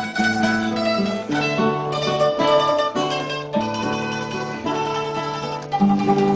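Instrumental music on plucked strings, a mandolin-like melody over guitar, playing a flowing tune with notes and chords changing every second or so.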